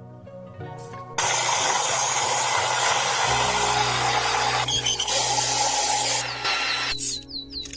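A power tool running steadily on metal for about six seconds, starting about a second in, over soft background music.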